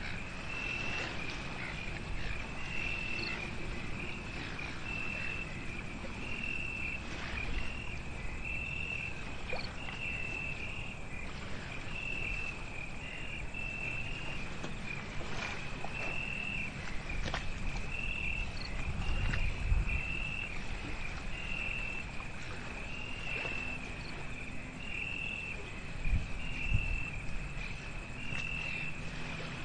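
A night insect chirping: a short, high, clear call repeated about once a second, over a low rumbling background. Dull low thumps stand out about two-thirds of the way in and again near the end.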